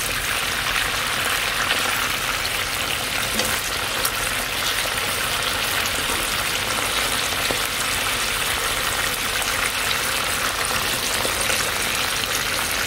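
Pieces of salt fish (makayabu) frying in hot oil with chopped spring onions, a steady, even sizzle.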